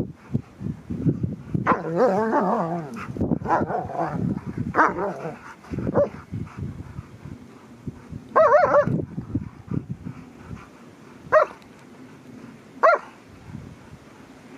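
Dogs play-fighting and vocalising: wavering, whining calls in the first few seconds and again about eight seconds in, then two short sharp barks or yips later on.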